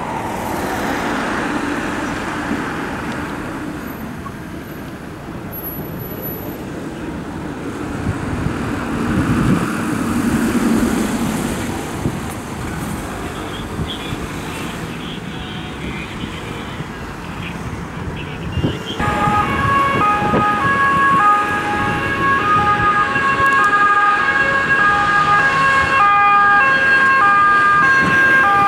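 Road vehicles drive past, louder about a second in and again about ten seconds in. About nineteen seconds in, an emergency vehicle's two-tone siren starts, switching between a high and a low note about once a second, and it grows louder as the vehicle approaches.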